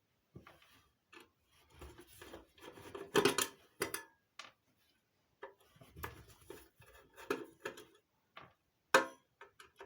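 Screws being undone from a marine radio's metal case and the case being handled: irregular clicks, scrapes and knocks with short pauses, loudest about three seconds in and near the end.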